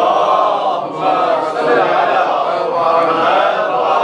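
Congregation reciting the salawat together in unison, a loud chorus of many voices drawing out the words in a chant.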